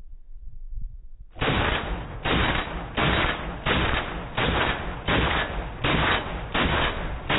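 FN FAL paratrooper rifle in .308 firing a rapid, evenly paced string of shots: the first comes a little over a second in, then about one every 0.7 seconds, some nine shots in all.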